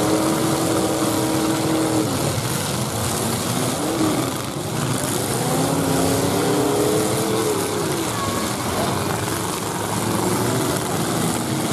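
Several 1980s full-size demolition derby cars' engines revving up and down, the pitch rising and falling over and over, over a steady wash of noise.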